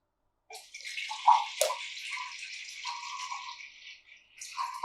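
African grey parrot mimicking the sound of pouring water: a steady watery hiss with short whistle-like tones under it and a couple of clicks, breaking off briefly near the end and starting again.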